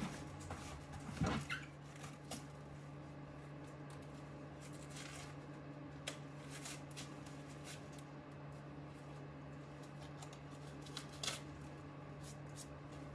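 Crinkling and rustling of clear plastic grow bags and dry white millet grain as it is handled and scooped, with the sharpest rustles about a second in and near the end, over a steady low hum.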